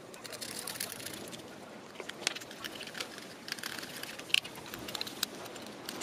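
Hands handling wiring and small parts in a black nylon enclosure: scattered light clicks and rustles, with a sharper click about two seconds in and another a little after four seconds.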